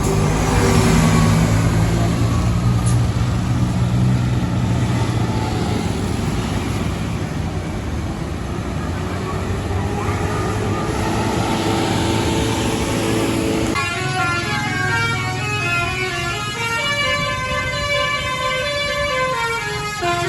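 Tour bus passing close by with its engine running loudly. About 14 seconds in, a telolet basuri horn starts playing a multi-note tune that steps up and down in pitch.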